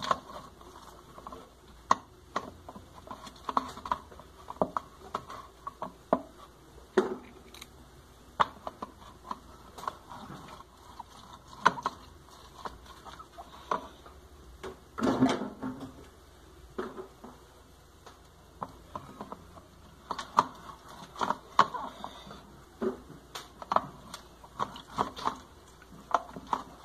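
Irregular light clicks and knocks of kitchen utensils and dishes being handled during food preparation, with one longer, louder rustle about fifteen seconds in.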